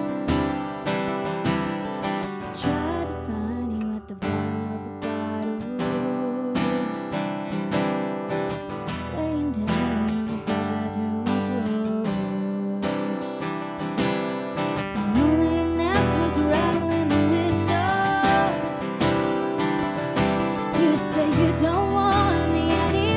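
Two acoustic guitars strumming chords while a woman sings the lead vocal of a country-pop song, performed live. The guitars play alone at first and the voice comes in a couple of seconds in. From about fifteen seconds in the singing climbs higher and the music grows louder.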